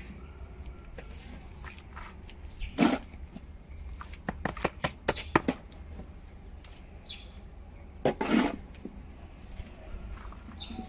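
A hand scoop scraping into sandy soil in a wheelbarrow and tipping it into a bin: scattered scrapes and clicks, with two louder scrapes about three and eight seconds in.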